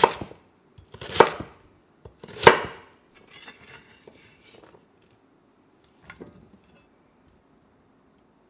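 Chef's knife chopping through sweet potato onto a wooden cutting board: three heavy chops about a second apart, then softer scraping as the diced cubes are gathered onto the blade, and a single light knock a few seconds later.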